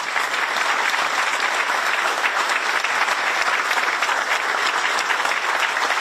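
Audience applauding steadily, a dense round of clapping.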